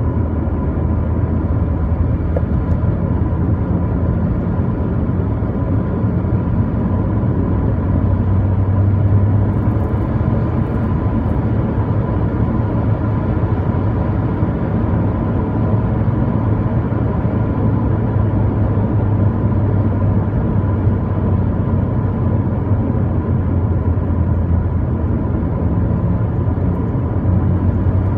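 A car on the move: a steady low rumble of engine and road noise with a faint, steady higher hum, and no distinct clonk standing out.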